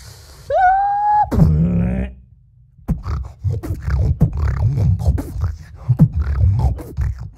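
A person beatboxing. About half a second in comes a held vocal note that rises and then stays level, and from about three seconds on there is a quick run of mouth clicks and percussive vocal sounds.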